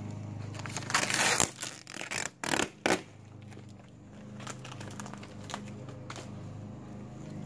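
Vinyl wrap film being pulled off a car's front fender: a few loud bursts of tearing and crinkling between about one and three seconds in, over a low steady hum.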